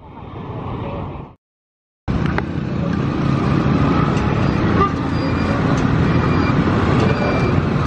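Busy street ambience: steady traffic noise of passing cars and motorbikes, with faint higher tones that may be a horn. The sound cuts out briefly about a second and a half in, then the traffic noise returns and runs on steadily.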